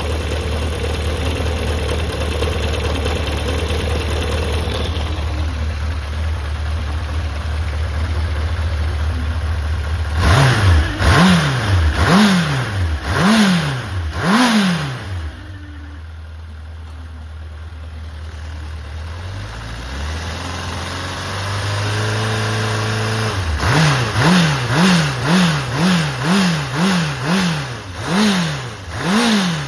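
Honda CB750F (RC04) air-cooled inline-four engine idling steadily, then revved in five quick throttle blips about ten seconds in, settling back to idle, then blipped rapidly over and over near the end. This is a start-up check on a used engine, which the seller advertises as free of abnormal noise and high in compression.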